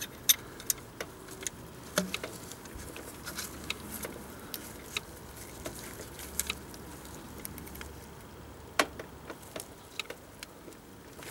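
Scattered metallic clicks and taps of hand tools against parts at the timing belt tension roller, irregularly spaced, with a sharper knock near the start and another about nine seconds in.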